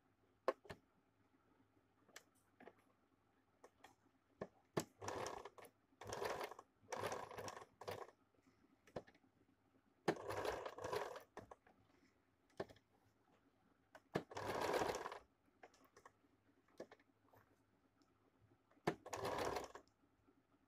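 Electric sewing machine stitching a seam in short runs of about a second each, six runs with pauses between. A few sharp clicks fall in the pauses.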